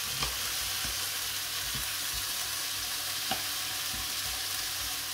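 Steady sizzle of sliced bell peppers and onion frying on high heat in olive oil, with a few light knocks of a knife slicing raw chicken breast on a wooden cutting board.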